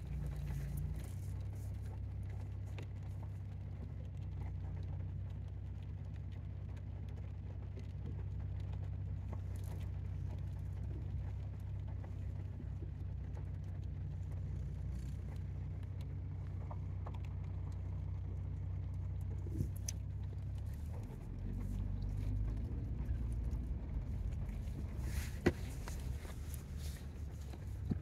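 A car's engine idling, a steady low hum heard from inside the cabin, which shifts slightly in pitch and gets a little louder about three-quarters of the way through. A few faint clicks sound over it.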